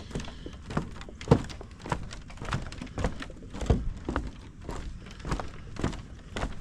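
Footsteps of a person walking at a steady pace along a woodland trail, a little under two steps a second, each a dull thud.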